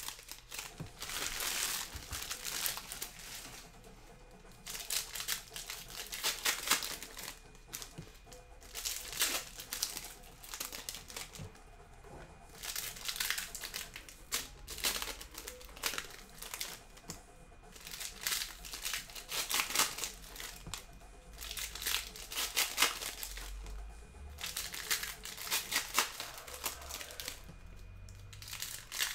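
Foil trading-card pack wrappers crinkling and tearing as packs are opened by hand, in repeated spells of a second or two every few seconds.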